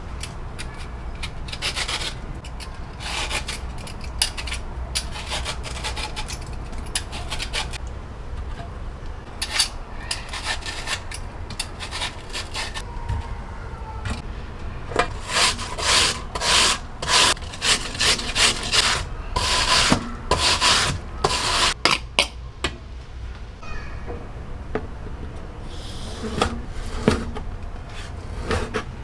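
Pear being rasped over a hand grater in irregular repeated strokes, louder and quicker in a stretch about halfway through.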